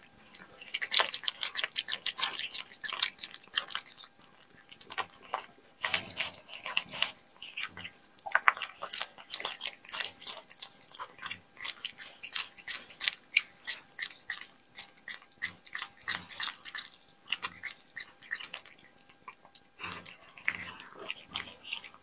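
A cat chewing and biting chunks of raw meat: quick clicking chews in bursts, with short pauses between them.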